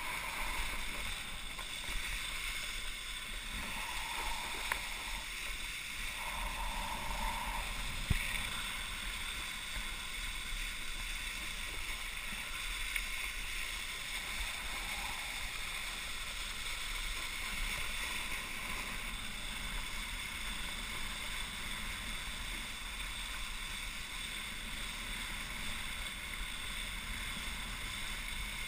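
Steady rush of a wakeboard planing across lake water and throwing spray, mixed with wind buffeting a helmet-mounted camera's microphone. There are two brief sharp knocks a few seconds in.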